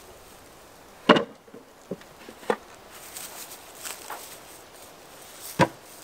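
Wooden beehive boxes knocking against concrete blocks and each other as they are set down and stacked: a sharp knock about a second in, two lighter knocks, and another sharp knock near the end.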